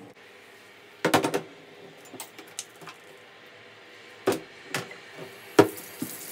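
A Suntour bicycle crankset clattering and knocking against a bathtub as it is scrubbed and handled: a quick run of clanks about a second in, then single knocks a few seconds later.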